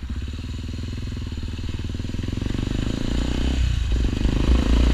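Honda XRE 300 single-cylinder engine running through a Roncar Coyote RS5 Boca 8 aftermarket exhaust, a full-bodied note that gets louder as the bike pulls. There is a brief dip about three and a half seconds in.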